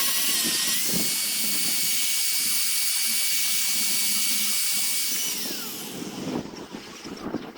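High-speed power tool running with a steady high whine, its pitch stepping up just after a second in. About five and a half seconds in the whine glides down and dies away as the tool spins down, and a few light knocks follow.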